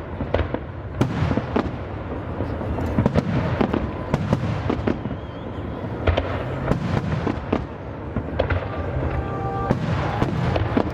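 Fireworks display going off: sharp bangs about every second, some in quick pairs, over a continuous rumble and crackle of further bursts.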